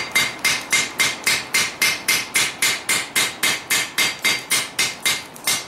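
Rounding hammer striking a red-hot steel claymore blade on an anvil in a fast, even rhythm of about four to five blows a second, each blow with a short metallic ring. The smith is forging the edge bevel, beveling top and bottom at once.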